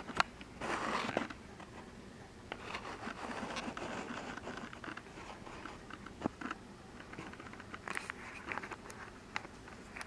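Striped skunk digging and foraging in garden mulch and grass: faint scratching, crunching and rustling with scattered sharp clicks, and a louder rustle about a second in.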